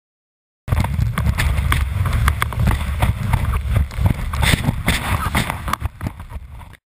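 Camera-mounted audio of an alpine snowboard riding over snow: wind rumbles on the microphone, and the board scrapes and clatters rapidly against the snow. The sound starts and stops suddenly.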